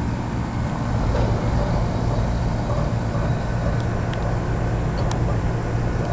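Central air-conditioner condensing units, a 1993 Trane XE1000 and a 1986 Lennox heat pump, running in cooling mode. They make a steady compressor hum with the whoosh of the condenser fan.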